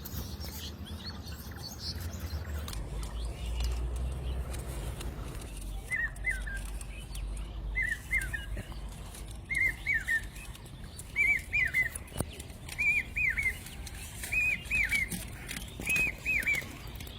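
A bird calling: a short phrase of two or three quick chirps, repeated about every second and a half from about six seconds in and growing louder.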